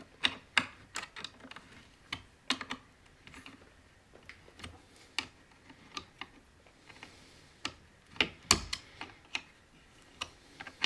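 Irregular small clicks and taps of a wrench and metal parts as the top handle of a Husqvarna 266/268 chainsaw is fastened, with a louder knock about eight seconds in.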